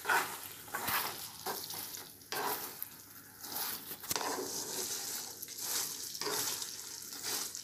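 Hot sugar syrup bubbling and sizzling in a non-stick pan as fried maida pieces are stirred through it with a wooden spatula, in uneven strokes. The syrup is at the one-string stage, coating the pieces.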